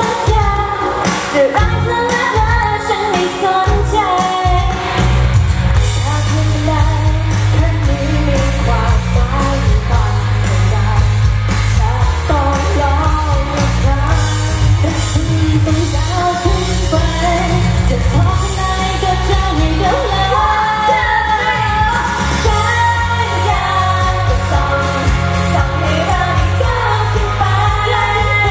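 Female vocalist singing a pop song live into a handheld microphone over a backing track with a steady, heavy bass line.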